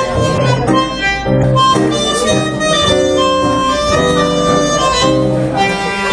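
Bandoneon and acoustic guitar playing an instrumental introduction, the bandoneon carrying a melody of held reedy notes over the guitar.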